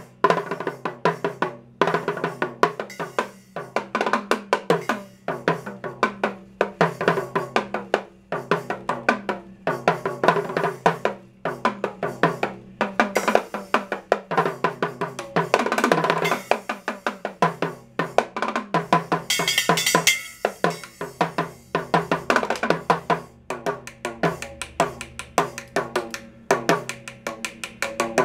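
Drum solo on a mini drum kit: fast, dense stick strokes on the small drums, with a brief cymbal wash about two-thirds of the way through.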